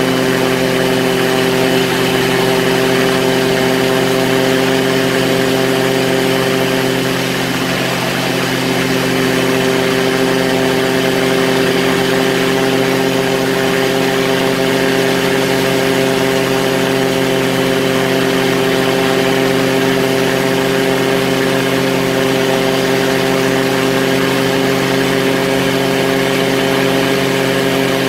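Quicksilver ultralight's engine and propeller running steadily at cruise power in flight, heard from the open cockpit as a constant, even drone.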